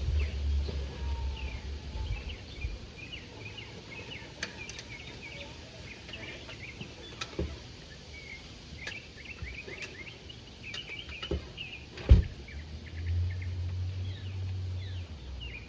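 Small birds chirping over and over in the background, many short calls. A low rumble sits under them at the start and again near the end, and there is one sharp knock about twelve seconds in.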